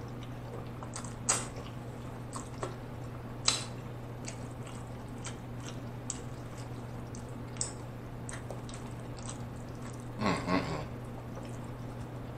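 Close-miked mouth sounds of eating spaghetti in tomato sauce: wet chewing, lip smacks and slurps of noodle strands, with a sharp smack every second or two and a longer wet slurp about ten seconds in.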